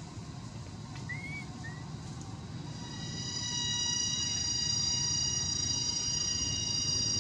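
Outdoor ambience: a low rumble with two short chirps about a second in, then a steady high-pitched insect drone of several held tones sets in about three seconds in and grows louder.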